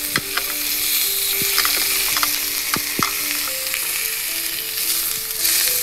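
Angus sirloin steaks sizzling steadily as they sear in an oiled grill pan, with a few sharp clicks of metal tongs against the meat and pan.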